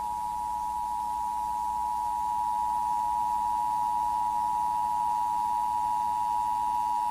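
Emergency Broadcast System attention signal: two steady tones sounding together, held unbroken at an even level. It announces an emergency alert.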